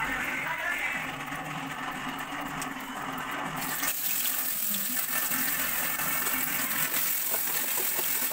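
Dried fish sizzling in hot oil in an aluminium kadai, the sizzle coming in suddenly about three and a half seconds in as the fish goes into the oil, and then running on with small pops.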